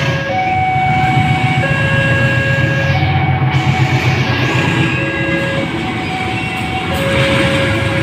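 CC201 diesel-electric locomotive's engine running hard at close range as the train passes, a heavy steady rumble, its black exhaust smoke the sign of the engine working under heavy load. Over it a level-crossing alarm sounds a two-tone chime, switching between a low and a high note about every 1.3 seconds.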